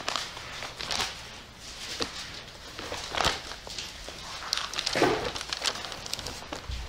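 Bible pages being turned and rustled, a few separate rustles at irregular moments, as people look up Isaiah 30 verse 7.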